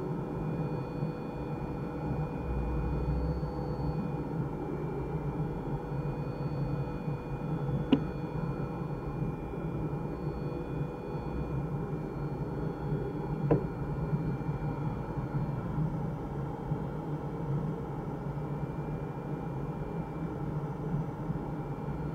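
Steady rush of air over a glider's cockpit canopy in flight, with a faint high whistle running through it. Two sharp clicks sound inside the cockpit, about eight and thirteen and a half seconds in.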